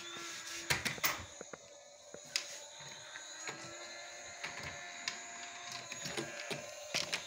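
Small electric motor whirring steadily with a thin whine, with scattered knocks and clicks of handling.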